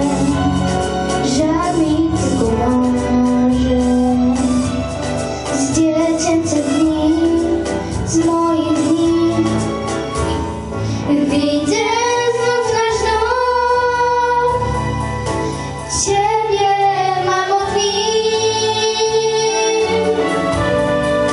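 Young girls singing a song into microphones over a musical accompaniment, with long held, wavering notes in the middle and again near the end.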